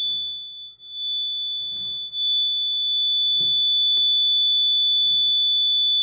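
Piezo alarm buzzer on an Arduino alcohol-detection board sounding one continuous high-pitched tone: the alert that alcohol has been detected and the engine locked off. A faint click about four seconds in.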